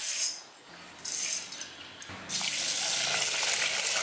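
Dry lentils poured into a steel pot over rice in two short spills, then about two seconds in a tap starts running a steady stream of water into the pot onto the grains.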